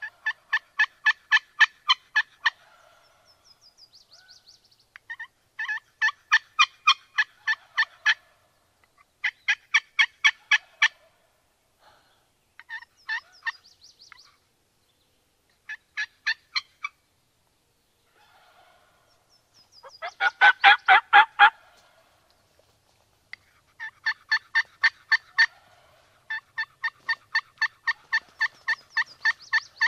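Wild turkey calls: repeated runs of yelps, about four a second and two to three seconds a run, with one loud gobble about twenty seconds in.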